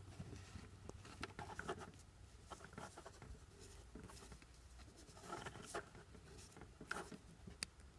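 Faint rustling and small ticks of fingers twisting a resistor's thin wire lead around a stripped wire end, with a few sharper clicks in the second half.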